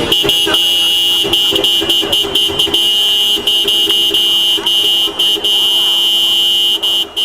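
A car horn honking over and over: a quick string of short choppy blasts, then longer held blasts, with a brief break near the end.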